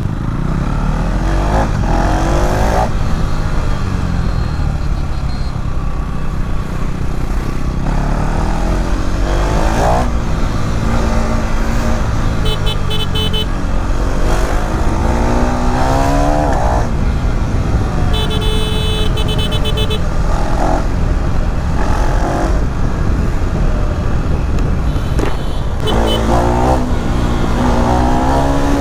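KTM 390 Duke Gen3 single-cylinder engine under way, revving up repeatedly with the pitch climbing and dropping back at each gear change. Two brief high-pitched tones cut in near the middle.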